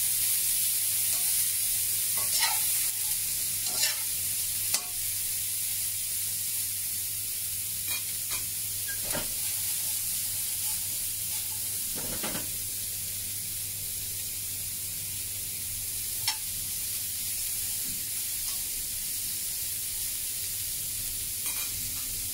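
Cauliflower florets sizzling in hot oil in a frying pan as they are stir-fried dry, before any water goes in, with the spatula scraping and knocking against the pan every few seconds.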